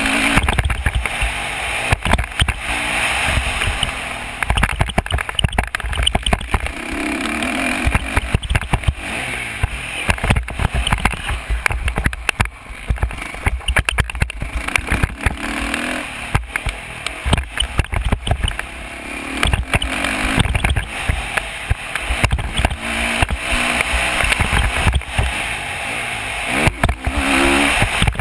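Off-road engine revving up and down over and over as the rider accelerates out of turns and along straights, under heavy wind buffeting and knocks from the bumpy track on a helmet-mounted camera's microphone.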